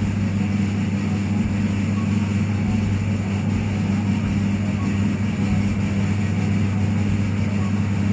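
Electric motor of a coconut-milk machine running steadily, its metal paddle churning through grated coconut, with a constant low hum.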